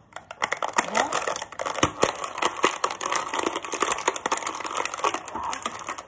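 Clear plastic toy wrapper being handled and pulled off a small toy: a dense run of irregular crackles that starts about half a second in.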